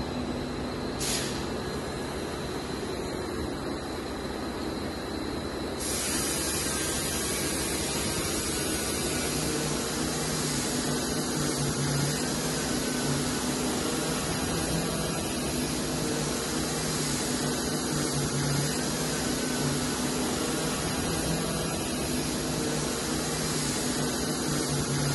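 Steady hissing noise, which turns brighter and a little louder about six seconds in.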